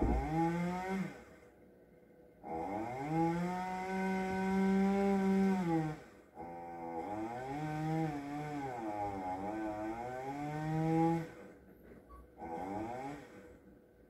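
Chainsaw revving in bursts. One burst ends about a second in. Another rises to full speed and holds for about three seconds, then a longer run of about five seconds sags in pitch and recovers midway, and a short burst comes near the end.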